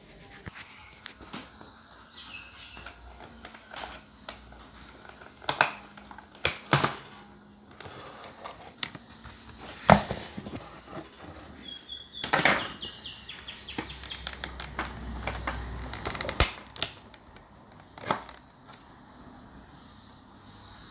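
Irregular clicks, taps and knocks of hands working on a toaster's parts during a repair, with handling noise between them and the sharpest knock about halfway through.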